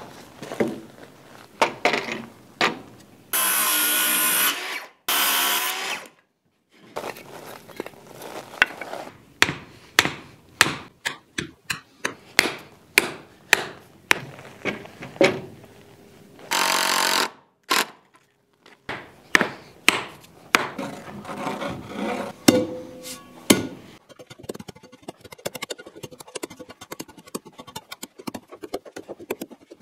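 Hammer blows on wooden form boards and stakes, many separate strikes in quick runs, broken by a few short bursts of a cordless drill driving screws. Near the end the strikes give way to lighter, denser scraping and tapping.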